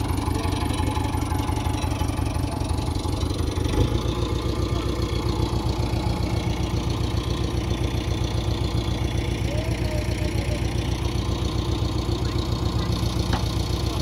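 JCB 3DX backhoe loader's diesel engine idling steadily, with an even, rapid chug. About four seconds in there is a brief knock, and the engine note turns deeper and fuller, then holds steady.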